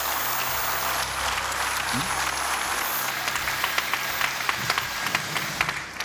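Studio audience applauding, a steady patter of many hands clapping, with individual claps standing out more in the second half.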